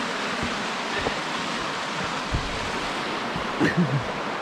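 River water rushing steadily over the rocks of a fast, shallow river, with a few low thumps of footsteps on the path.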